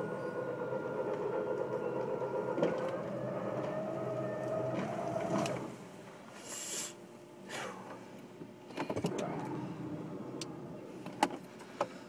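Jeep Wrangler's electric winch whining under load as it hauls on the cable. The whine rises a little in pitch and stops about five and a half seconds in, and a brief swish of branches follows as the pulled pine tree comes down.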